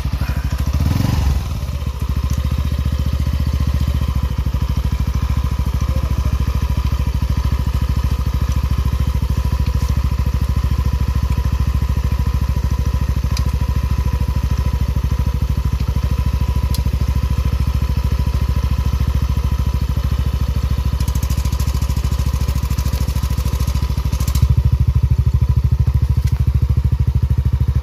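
Yamaha NMAX version 2 scooter's single-cylinder engine idling steadily through an adjustable aftermarket JVT exhaust pipe, set to its quieter position that sounds close to the stock pipe. It gets a little louder near the end.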